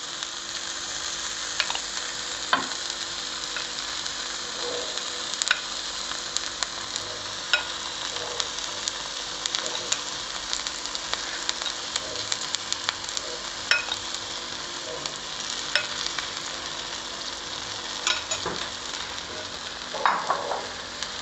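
Beaten egg, with sausage and vegetable pieces, sizzling steadily in oil in the compartments of a paniyaram pan over low flame. There are occasional light clicks, about eight across the stretch.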